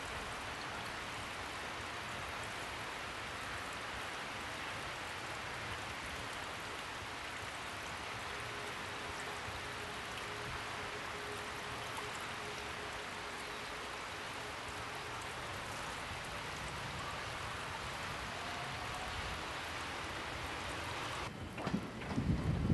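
Steady hiss and patter like falling rain, with a faint steady tone about halfway through. Shortly before the end it cuts abruptly to a lower, louder rumble inside a train.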